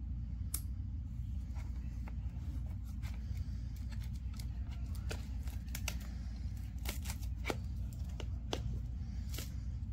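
Handling noise from a plastic emergency hand-crank radio: irregular sharp clicks and taps as its fold-out crank handle and antenna are moved, over a steady low hum.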